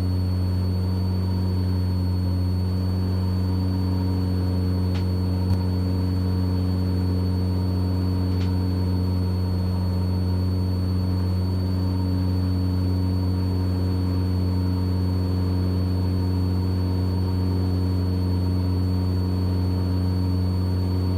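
Mooney M20E's four-cylinder Lycoming engine and propeller running at steady climb power just after takeoff, an even drone that does not change. A faint steady high whine sits over it, and there is a single small tick about five seconds in.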